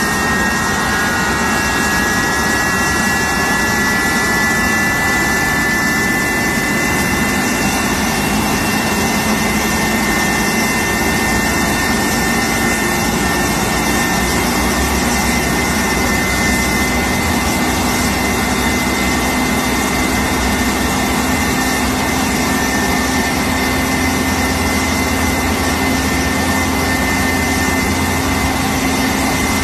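Airliner turbofan engine turned slowly on its starter during a freshwater engine wash: a steady high whine that climbs a little in pitch in the first few seconds, over a constant rushing noise.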